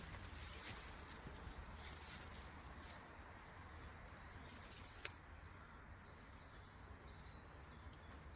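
Faint outdoor ambience with small birds chirping softly in the background, and a single click about five seconds in.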